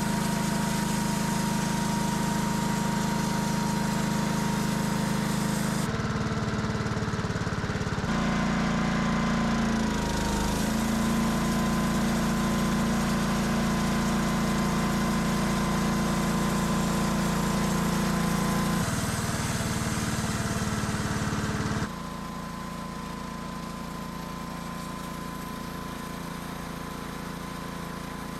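A homemade sawmill's small engine runs steadily with a thin high whine over it. The sound shifts abruptly several times and drops quieter about 22 seconds in.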